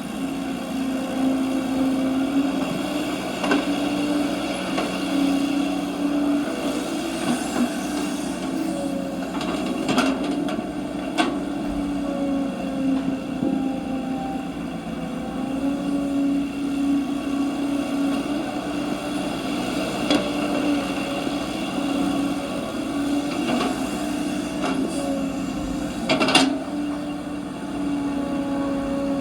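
Small electric motor of a radio-controlled model excavator or truck running with a steady, slightly wavering whine, broken by a few short knocks, the loudest near the end.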